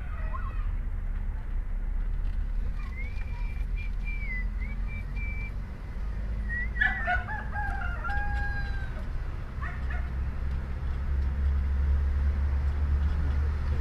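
Roosters crowing, heard from inside a moving car's cabin over a steady low engine and road rumble: one crow about three seconds in and a louder one around seven seconds in. The rumble grows louder near the end.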